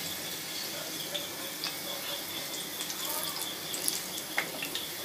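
Cooking oil sizzling steadily in a frying pan, with a few light clicks of a spatula against the pan and plate as fried kababs are lifted out.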